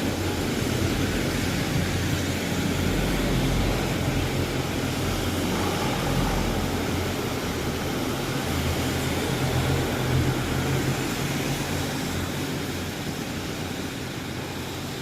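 Steady low engine rumble under a noisy hiss, slowly fading over the last few seconds.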